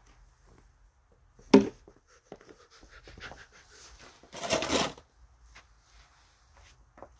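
Scattered scraping and rubbing noises, with a sharp knock about a second and a half in and a longer, louder scrape around four and a half seconds in.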